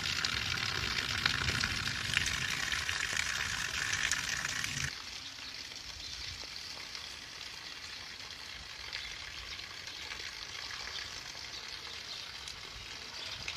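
Heavy rain pouring, a steady hiss with some low rumble. The hiss drops clearly in loudness about five seconds in and carries on quieter.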